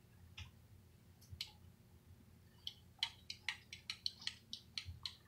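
Faint clicks of small magnetic balls snapping together: a few single clicks, then from about three seconds in a quick run of about four clicks a second, heard through a laptop's speakers.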